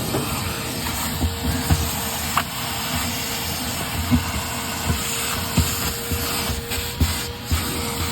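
A machine running with a steady hiss and a constant hum during cleaning of a clogged furnace heat exchanger, with scattered light knocks and taps from tools working in the unit.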